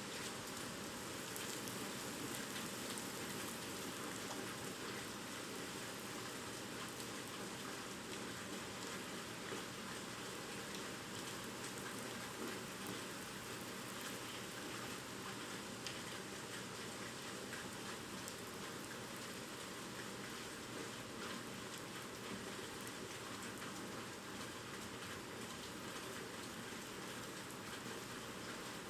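Heavy typhoon rain falling steadily, an even hiss of rain on surfaces that holds unchanged throughout.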